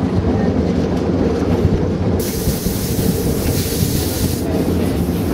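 Historic electric streetcar running along its rails, heard from the motorman's cab: a steady low rumble of motors and wheels on track. A hiss starts suddenly about two seconds in and lasts about two seconds.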